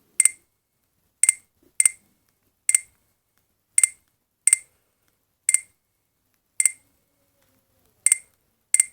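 Alcatel OT-810 mobile phone's key tones as its menu is scrolled: about ten short, sharp beeps at irregular intervals, one per key press.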